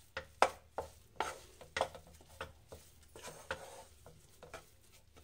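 Wooden spatula stirring and scraping gram flour as it roasts in ghee in a non-stick kadhai. The strokes come quickly, about two a second, and grow softer near the end.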